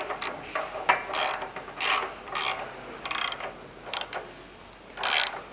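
Ratchet wrench clicking in repeated short bursts, roughly one every half second to second, as it turns the jack screw of a conveyor belt drive. The screw is being tightened to bring the drive belts up to tension.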